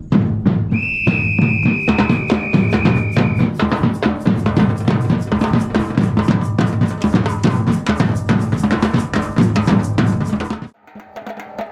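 Batucada percussion ensemble playing a dense, steady groove of bass drums and snare drums, with one long held whistle blast about a second in. The whole ensemble stops together near the end, a break on cue.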